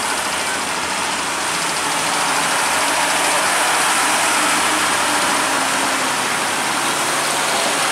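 Old truck's engine running steadily as it climbs a steep hairpin, with rain hissing on the wet road.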